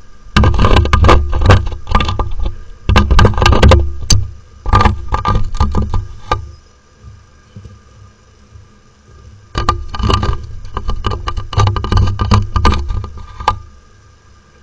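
Female peregrine falcon striking and scraping at the Axis P3364 security camera's housing, close to its microphone: rapid loud knocks and scratches with heavy thuds, in three quick bursts, a pause, then a longer burst near the end.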